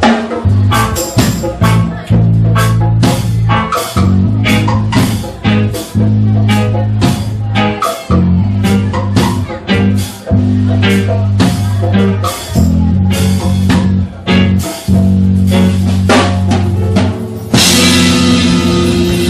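Live dub band playing an instrumental passage: drum kit keeping a steady beat of sharp hits, about two a second, over a deep held bass line. About a second and a half before the end the band breaks into a fuller, louder section with cymbals washing over it.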